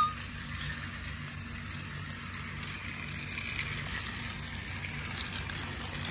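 Battery-powered toy trains running on plastic track, a steady whir of their small electric motors and wheels with a few faint ticks.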